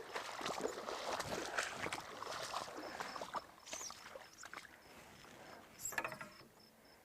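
Rustling and splashing at the water's edge with small clicks, fading after about three and a half seconds, while a faint, evenly pulsed high chirp carries on behind it.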